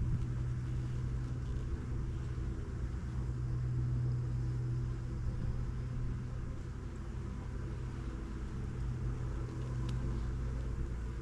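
Steady hum of many honeybees around an opened hive during a frame inspection, over a low rumble.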